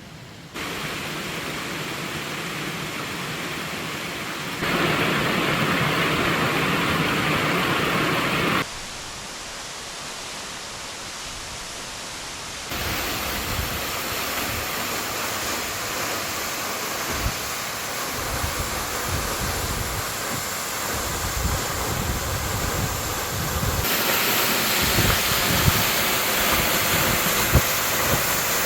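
Steady rushing roar of falling water from the Tanashita Fudo waterfall, changing abruptly in loudness and tone several times as the shots cut. In the second half, uneven low rumbles run under the roar.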